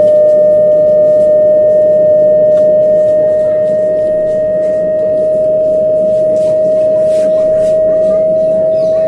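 Home theatre speaker giving out a loud, steady whistle, one tone that creeps very slightly higher in pitch: the 'train whistle' fault of the home theatre's amplifier.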